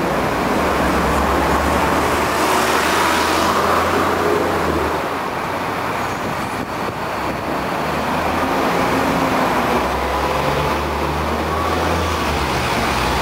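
Diesel bus engines in city-centre traffic: a single-deck bus runs close by in the first few seconds, the engine rumble drops away in a lull around the middle, and then a double-deck bus comes up close towards the end.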